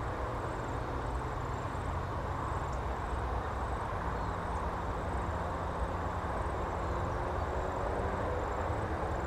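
Steady low outdoor rumble with faint, high-pitched chirps repeating at an even pace.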